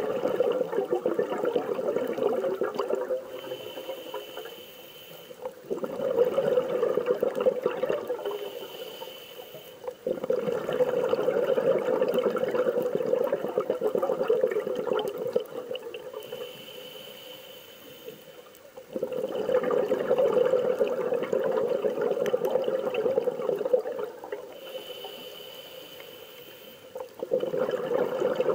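A scuba diver breathing underwater through a regulator: five bubbling, gurgling exhalations of a few seconds each, separated by quieter inhalations with a thin high hiss.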